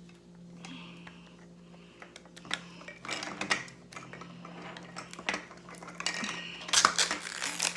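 Scattered light clicks and clatter of small plastic miniature toys being handled and set down, in several quick clusters after the first couple of seconds, over a steady low hum.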